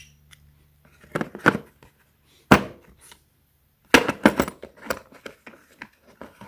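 Steel brake caliper piston wind-back tools and adapter discs knocking and clinking as they are set into a plastic tool case: scattered knocks, a sharp one about two and a half seconds in and a quick cluster about four seconds in.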